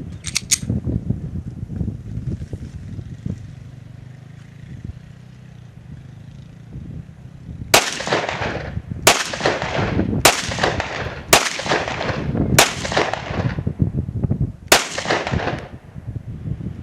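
Six gunshots from a semi-automatic rifle, most likely the AK-47, fired in steady succession about a second apart, each with a short echoing tail; the first comes about halfway through and the last after a slightly longer pause. Before the shots there is a low wind rumble on the microphone.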